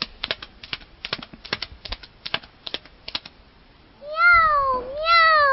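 A child vocally imitating comic-strip sounds: a quick run of tongue clicks for a horse's hoofbeats ("pataclop"), about four a second, then two cat-like "miaou" calls, each rising and then falling in pitch.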